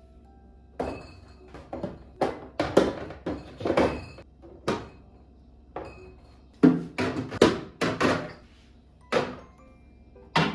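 Kitchen objects being handled and set down: a series of irregular knocks, thunks and light clatters, the loudest a little past halfway.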